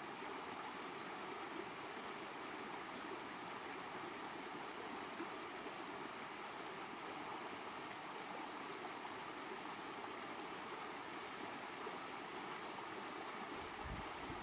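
Shallow stream rushing steadily over rocks and small rapids. A few low thumps come near the end.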